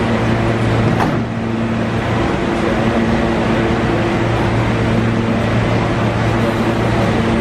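R160 subway train standing at the platform with a steady electrical hum, its doors sliding shut with a knock about a second in.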